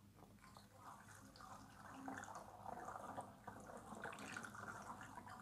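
Faint trickle of milky homemade hand sanitizer (ethyl alcohol, water and glycerine) poured from a plastic bottle through a plastic funnel into a pump bottle. It gets a little louder about two seconds in.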